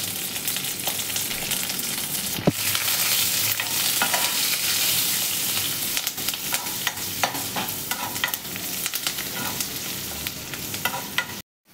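Spiced oil sizzling and crackling in a kadai as a tempering of mustard seeds, garlic, dried red chillies and curry leaves fries, while a steel ladle stirs and scrapes through it. There is one sharp knock about two and a half seconds in, and the sound cuts out abruptly just before the end.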